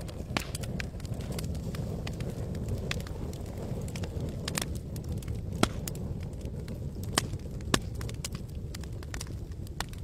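Campfire crackling, with irregular sharp pops and snaps over a steady low rumble; the loudest pops come about halfway through and twice more a second or two later.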